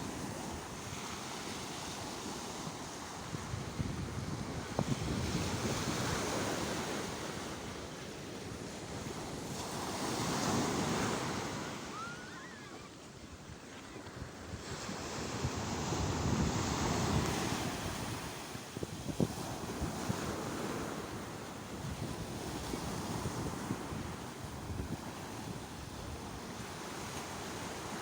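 Sea surf, waves breaking and washing in, the rush of water swelling and easing every few seconds.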